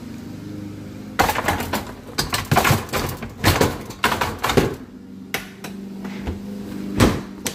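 Dishwasher rack being put back in on its rails: a quick run of rattles and knocks of the wire rack and rollers, then a few separate knocks.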